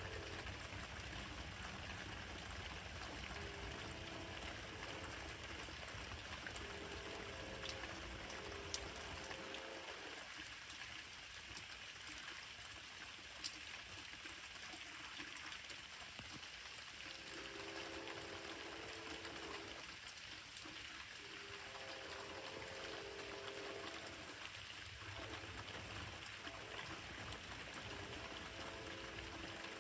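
Steady rain hiss with a locomotive horn chord sounding repeatedly in long blasts of a few seconds each, about five in all, from an Amtrak train's P42DC locomotives blowing for the crossings.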